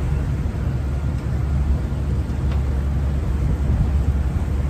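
Steady low rumble on the open deck of a moving sightseeing boat: wind buffeting the microphone over the drone of the boat's engine.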